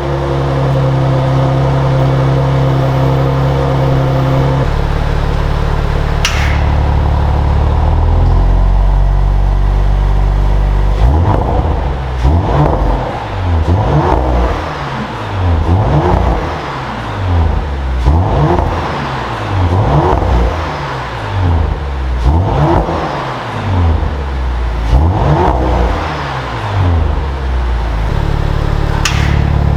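2022 Audi RS 4 Avant's 2.9-litre twin-turbo V6 idling steadily, then blipped through a long run of quick revs, each a short rise and fall in pitch about every second or two, before settling back to idle near the end.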